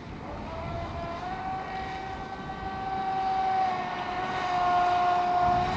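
Pro Boat Impulse 31 V-hull RC speed boat running at speed on 4S, its electric brushless motor giving a steady high-pitched whine. The pitch steps up about a second in, and the whine grows louder near the end.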